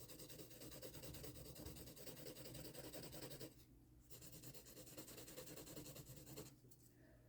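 Faint scratching and rubbing of a drawing tool on paper, pausing briefly about three and a half seconds in and again near the end.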